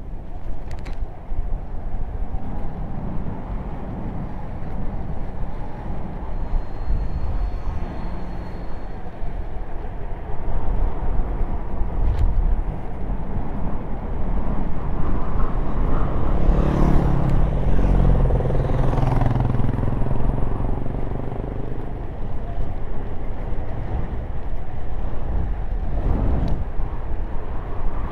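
Wind rushing over the microphone and tyres rolling on asphalt as a Trottibike kick scooter coasts downhill. About halfway through, a louder pitched hum swells and then sinks slightly in pitch over several seconds, and a few brief clicks come through.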